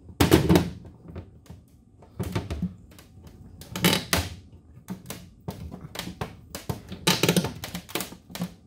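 Hand pop-rivet gun squeezed stroke after stroke to set a 3/16-inch blind rivet through an aluminium bracket on a boat's metal deck: a series of sharp clicks and clunks, some with a short metallic ring. The rivet is at the limit of what the gun can pull.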